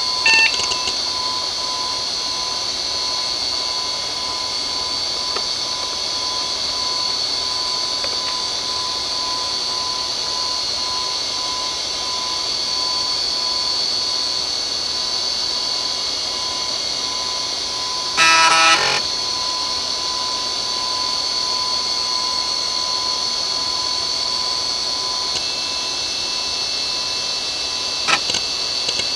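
IBM Travelstar DVAA-2810 2.5-inch hard drive spinning with a steady high whine as the PC goes through its BIOS self-test. About two-thirds through, a short beep under a second long is the loudest sound. There are brief clicks just after the start and once near the end.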